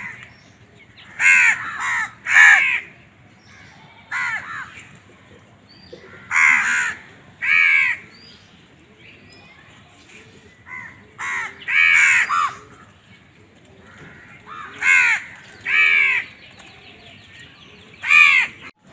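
Crows cawing: harsh, short caws coming singly or in quick runs of two or three, about a dozen in all, with gaps of one to three seconds between groups.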